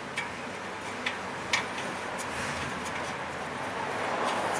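A few light metallic clicks and handling noises as a new air-fuel ratio (O2) sensor is worked into place by hand, over steady shop background noise.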